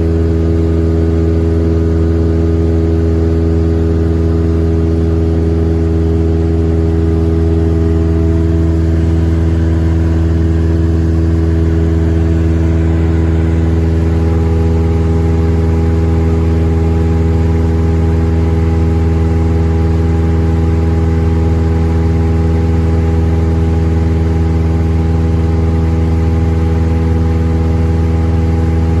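Cessna 172M's four-cylinder Lycoming engine and propeller droning steadily at a constant setting, heard from inside the cabin.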